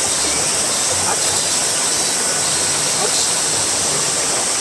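Clear, shallow mountain stream flowing over rocks: a steady, loud rush of water.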